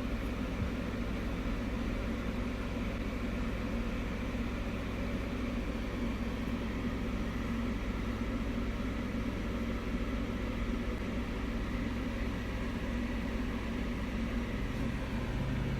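Steady low mechanical hum with a faint high whine over it, unchanging throughout.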